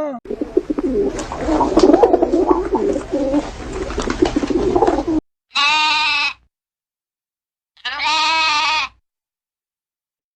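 Many animal calls overlapping in a dense jumble for about five seconds, then two separate short bleats a couple of seconds apart.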